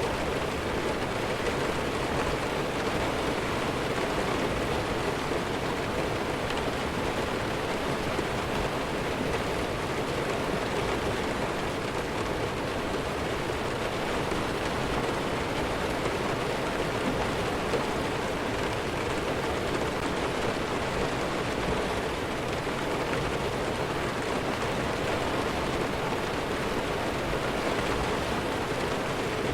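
Steady rainfall, an even hiss of drops with no change in strength and no thunder.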